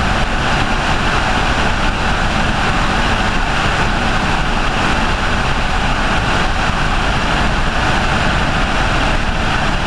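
Helicopter in flight: steady, loud rotor and engine noise.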